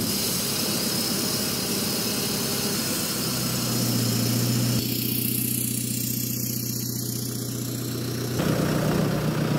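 A deleted and tuned Chevrolet Colorado ZR2's 2.8-litre Duramax four-cylinder turbodiesel idling, a steady low engine hum heard at the exhaust.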